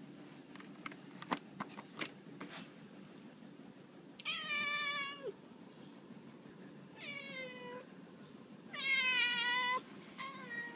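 Domestic cat meowing insistently for treats: three drawn-out meows of about a second each, the third the loudest, with a fourth starting near the end. Before them come a few short crinkling clicks from the foil treat bag being nosed.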